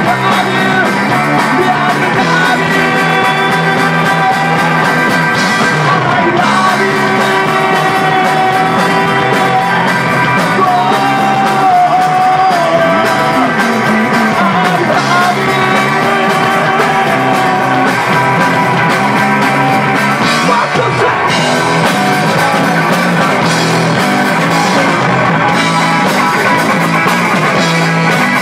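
A rock band playing live: electric guitar, bass guitar and drums, with a male singer at the microphone. Loud and continuous, with a long held sung note about halfway through.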